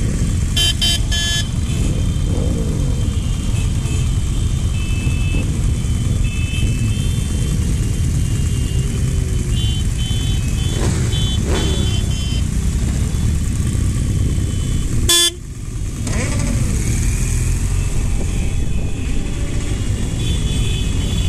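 A motorcycle convoy riding along, with a steady low rumble of engines and road noise. Horns toot repeatedly from the group: a quick run of beeps right at the start, then more around six seconds and from about ten to twelve seconds in. About fifteen seconds in there is a sharp crackle, and the sound dips for about a second.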